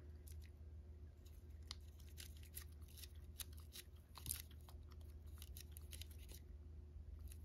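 Cat licking a lickable tuna paste treat from a squeezed tube: a string of faint, irregular wet clicks and smacks of the tongue, one a little louder about four seconds in.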